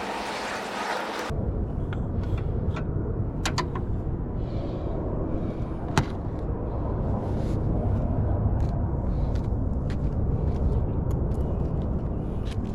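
Short clicks and light knocks from hands and parts working at the oil catch can, with one sharp click about six seconds in, over a steady low rumble.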